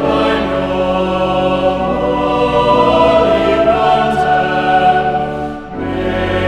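Sacred choral music: a choir holding sustained chords, which briefly dip and change about five and a half seconds in.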